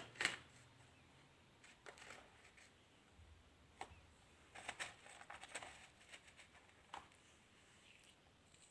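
Clumps of coloured sand crumbling with soft crunches and crackles. The loudest comes about a quarter second in, with scattered single crackles later and a cluster of small ones around five seconds in.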